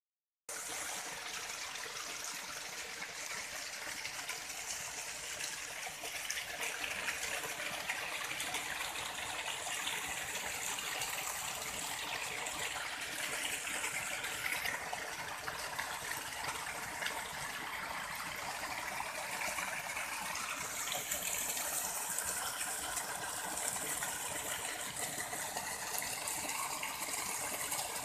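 Small stream running over stones: a steady rushing of water.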